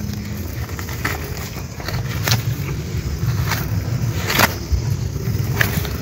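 Fingers scratching and digging in damp soil around the base of a wild mushroom, with a handful of sharp crackling scrapes about a second apart over a steady low rumble.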